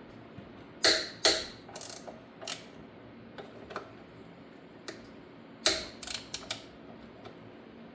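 Socket wrench clicking and clanking as the chain adjuster bolts on a Honda ATC70's frame are loosened, in irregular bursts of sharp metallic clicks, most of them in the first two and a half seconds and around six seconds in.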